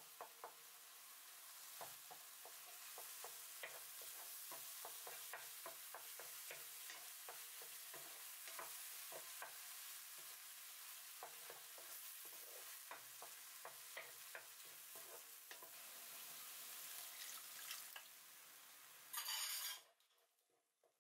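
Tomato sauce frying in a hot pan with a steady sizzle, stirred and scraped with a wooden spatula in many small clicks and scrapes. Near the end comes a short, louder hiss as water goes into the hot pan, then the sound cuts off suddenly.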